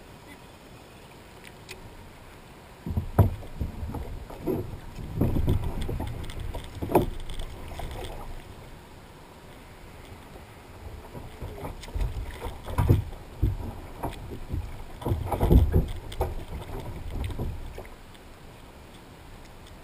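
Irregular splashing and knocks against a plastic kayak hull as a dog swimming alongside is grabbed at the side, in two busy spells with a quiet gap between.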